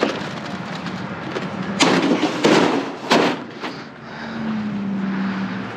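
Junk being pulled out and dropped in a dumpster: a run of loud clattering bangs and crashes about two to three seconds in, over a steady low hum.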